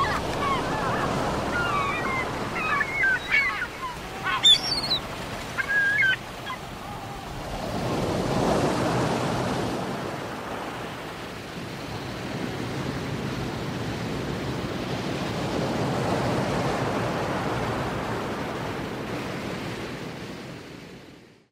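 Ocean surf breaking on a beach, the rush of water swelling and easing in slow waves. Several short bird calls come in the first six seconds or so, and the surf fades out at the very end.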